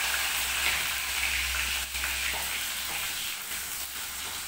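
Hot oil sizzling in a steel pan as tadka (tempering) ingredients fry, with a metal ladle stirring through it. The sizzle is strongest in the first couple of seconds and then eases a little.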